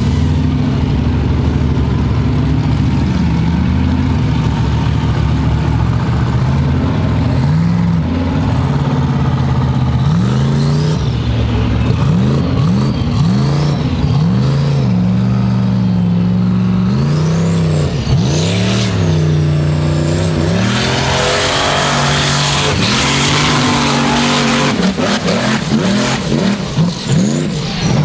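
Off-road racing buggy's engine revving hard under load on a steep dirt hill climb, its pitch rising and falling again and again with the throttle. About three-quarters of the way in, a loud hiss of spraying dirt joins it for a few seconds.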